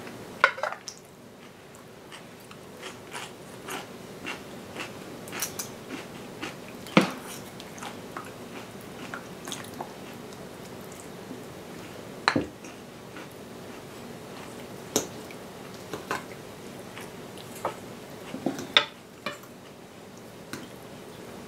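Eating sounds: irregular light clicks and taps of utensils on tableware, a few sharper knocks among them, with chewing.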